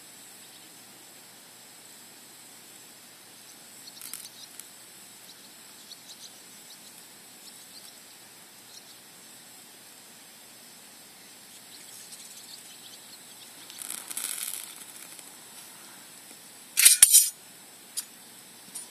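Light clicks and handling noises over a faint steady hiss, with a short scratchy burst about 14 seconds in and a loud, sharp double clatter about 17 seconds in, followed by one more click.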